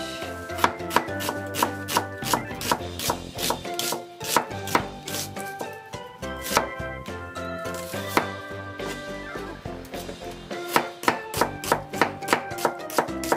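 Kitchen knife slicing through an onion and knocking on a plastic cutting board, about three cuts a second with a short pause near the middle, over background music.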